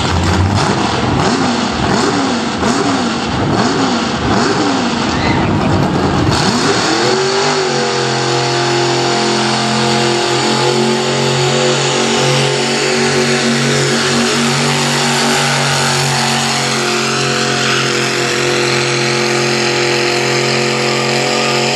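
V-8 engine of a modified garden pulling tractor revving in short blips, then opening up about seven seconds in and holding at high revs as it drags the weight-transfer sled.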